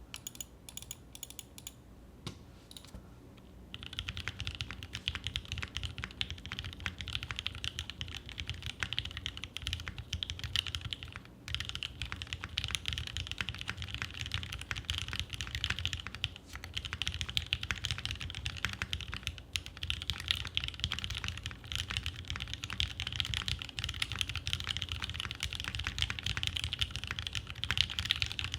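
Fast typing on a gasket-mounted 65% mechanical keyboard (NEO Keys Element G67) with lubed OA linear switches, a carbon fibre plate, PCB foam and GMK keycaps; the keystrokes are clacky. A few scattered keypresses open it, then continuous rapid typing starts about four seconds in, with a brief pause midway.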